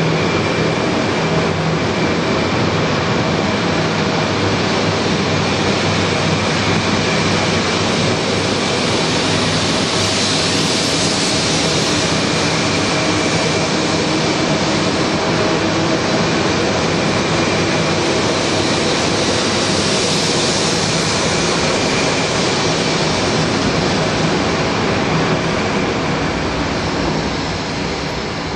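A 200 series Shinkansen train running alongside the platform: a steady, loud rush of wheel and motor noise with a thin high whine through it. The noise swells twice along the way and starts to die away near the end.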